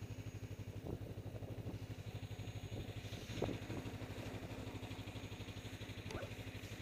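Snowmobile engine idling with a steady, even pulse, and a brief louder swell about three and a half seconds in.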